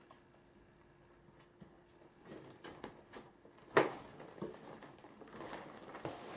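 Cat batting at a small toy on a pop-up fabric play cube: scattered light taps and crinkly rustling of the nylon, starting about two seconds in, with one sharp knock a little before four seconds.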